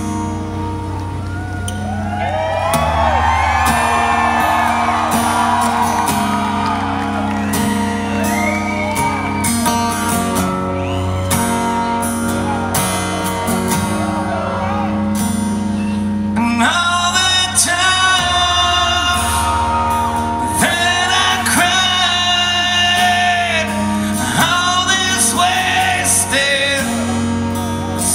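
Live acoustic guitar music with singing, from within the audience, with shouts and whoops from the crowd.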